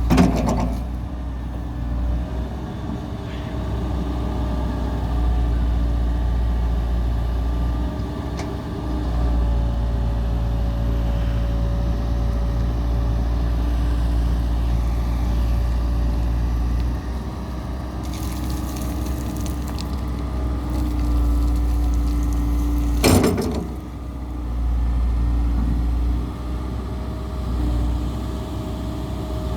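Diesel engine of a Komatsu PC160LC-7 hydraulic excavator running steadily with a deep rumble, its level rising and dipping. A sharp knock sounds at the start and again about 23 seconds in.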